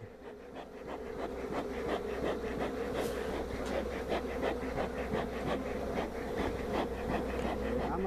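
A honeybee colony buzzing in a steady, many-voiced hum, stirred up as its traditional log hive is smoked and opened, with scattered light clicks through it.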